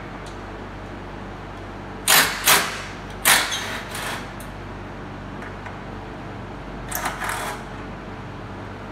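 Steady workshop hum with loud knocks and clatters, a quick pair about two seconds in, another about three seconds in, and a shorter clatter about seven seconds in.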